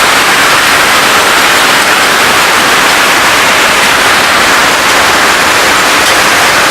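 Heavy rain and hail falling: a loud, steady wash of noise.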